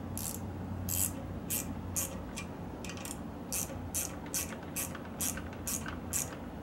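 Light electric motor oil squirted from a small oiler onto a steering-knuckle ball joint, in about a dozen short, hissy spurts roughly two a second, over a steady low hum.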